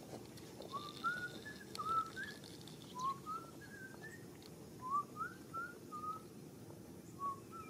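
A person whistling a casual tune in short, upward-sliding notes, in loose phrases of three to five notes with brief gaps between them, over a faint steady background hiss.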